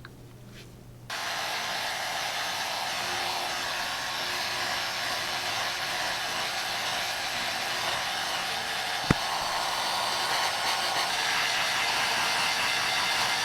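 Heat gun switched on about a second in, then blowing steadily, warming a phone's back glass to soften its adhesive. A single sharp click about nine seconds in.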